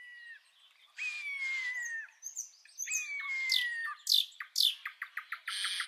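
Wild birds calling: two long falling whistles about two seconds apart, each lasting about a second, among shorter chirps, then a rapid run of short ticks near the end.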